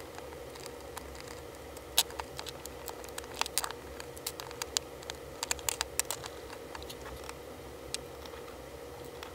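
Small sharp clicks and taps of screws, a screwdriver and hard plastic and metal gearbox parts being handled and set down on a workbench as an airsoft AK's gearbox is taken apart. The loudest click comes about two seconds in, followed by scattered clusters of quick clicks.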